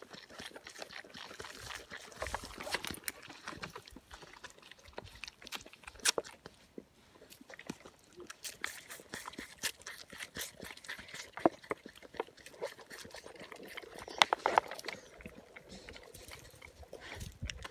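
Wet sucking and slurping of a fawn nursing from a bottle teat, mixed with a dog's tongue lapping at the bottle and the fawn's mouth: irregular wet clicks and smacks, a few of them louder.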